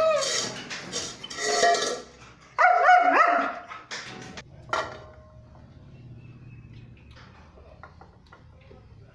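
A German Shepherd-type dog paws a stainless steel bowl, scraping and clattering it on the tile floor, begging for food. About two and a half seconds in she gives a short whining bark, followed by two sharp clinks of the bowl, then only faint clinks.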